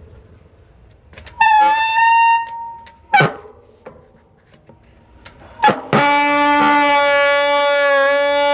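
Hero MTB bicycle's disc brake squealing as it is applied: a short, higher squeal, a click, then a longer, lower squeal lasting about three seconds. The pads are contaminated with a little oil, so they slip and squeal.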